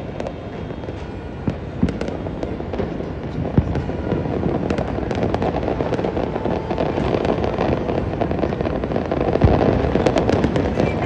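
Many fireworks and firecrackers going off at once in a dense, continuous crackle, with scattered louder bangs standing out, one sharp one about a third of the way in and another near the end.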